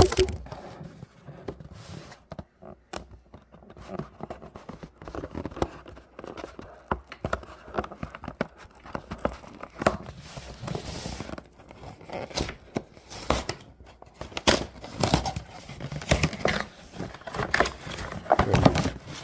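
Product packaging being torn open and unwrapped by hand: irregular crinkling, tearing and clicking of wrapping and box parts.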